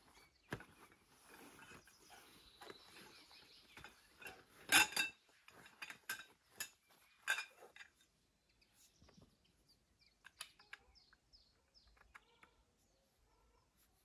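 Knocks and clinks of camp cookware and gear being handled, the loudest a single ringing metallic clank about five seconds in. Faint bird chirps follow in the second half.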